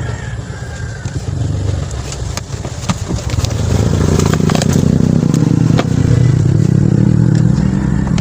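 A motor vehicle engine running, growing louder about four seconds in, with scattered light clicks and clatter.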